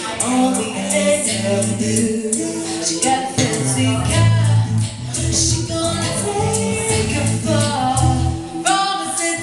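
A band playing a song live, with sung vocals over a steady accompaniment.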